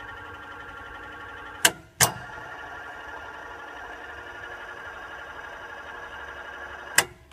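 Electric lift drive of a Celaschi TSA tenoner whining steadily as a motor unit is raised and lowered by push-button. Twice a pair of sharp switching clicks, a third of a second apart, breaks the whine, which stops briefly between them. These are the loudest sounds.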